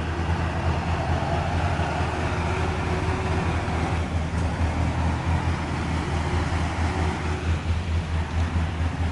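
Ural truck's engine pulling hard at a steady low pitch as the truck and its loaded tanker trailer churn through deep muddy water, with water splashing and sloshing around the wheels.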